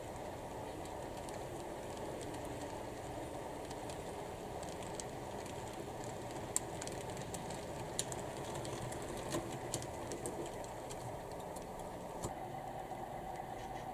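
HO scale model train of log-loaded flatcars rolling along the track: a steady low running noise, with a scattering of sharp clicks from the wheels in the middle stretch.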